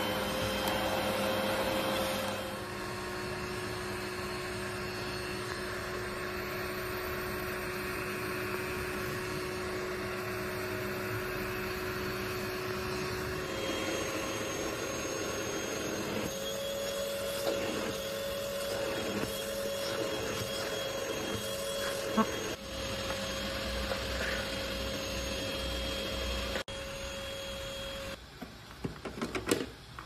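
Electric pet grooming vacuum running through its hose and brush head, with a steady motor whine. About halfway through the tone shifts, then its pitch dips and recovers several times as the brush is stroked over fabric. The sound cuts off near the end and a few clicks follow.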